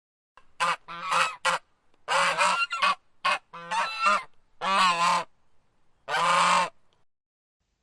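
A goose honking repeatedly, about nine calls in a row, the later calls longer.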